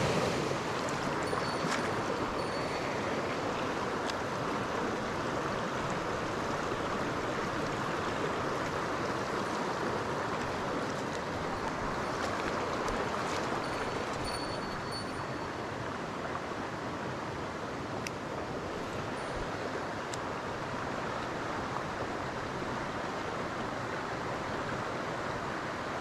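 Mountain stream rushing over boulders in small cascades: a steady wash of water noise that eases slightly about halfway through.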